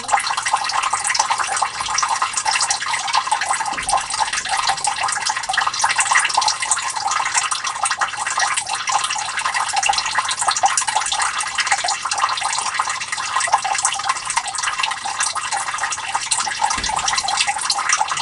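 Water trickling and splashing steadily into a sump pit, filling it before the float switches the sump pump on.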